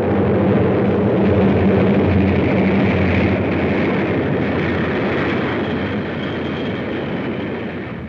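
Diesel freight train passing: a loud rushing rail noise with a steady low engine drone. It swells over the first second, the drone falls away about halfway through, and the noise slowly fades toward the end.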